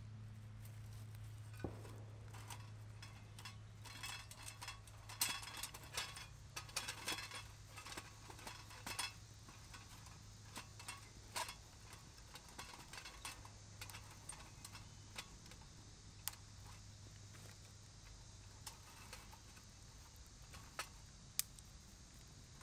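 Dry twigs clicking, rustling and scraping against a small folding metal wood stove as they are pushed in through its front opening to feed a fire just lit on a fire-starter cube. The clicks are thickest in the first half, then give way to scattered sharp crackles as the fire takes hold.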